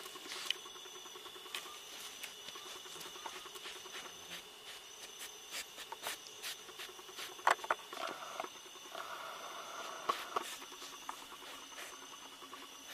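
Insects calling in steady high-pitched tones, with scattered clicks throughout and a sharper click about halfway through.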